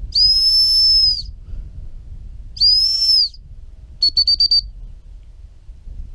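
Gundog whistle blown by a handler: two long steady blasts, the stop whistle, then a quick run of about six short pips about four seconds in.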